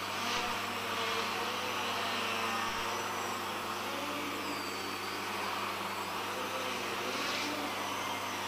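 Leadfeather SkyCart, a small electric RC quadcopter, flying, its propellers giving a steady whine whose pitch rises and falls as the motor speeds change.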